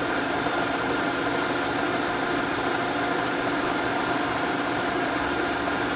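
Bridgeport tracer mill running, its 1/4-inch four-flute ball-nose end mill cutting a black walnut pistol grip. The sound is a steady machine hiss with a few held tones, unchanging in level.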